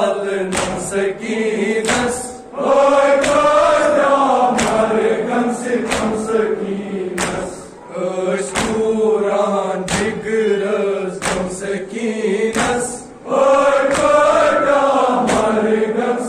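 A group of mourners chanting a Kashmiri noha in chorus, the phrases swelling and dropping away every few seconds, with sharp rhythmic beats about twice a second.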